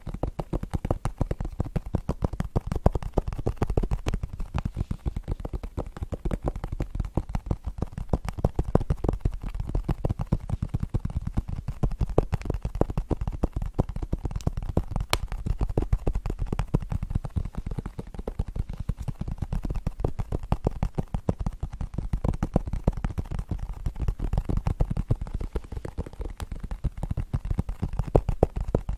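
Long acrylic fingernails tapping fast and continuously on a cardboard eyeshadow palette close to the microphone: a dense patter of sharp clicks with a deep, close-up thud under them.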